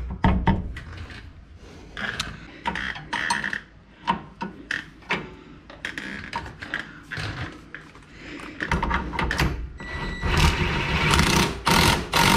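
Metal clinks, knocks and scraping of a wrench and bolt against a pickup's rear shock absorber mount as the shock is lined up with a new shock extender and the bolt is pushed through. In the last few seconds the noise turns louder and steadier.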